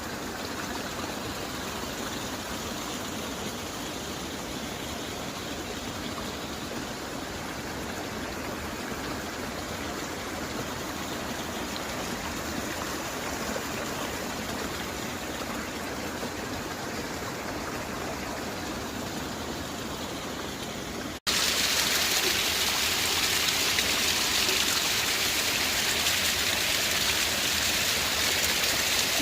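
Steady rushing of flowing water, like a stream. About two-thirds of the way through it cuts abruptly to a louder, hissier rush.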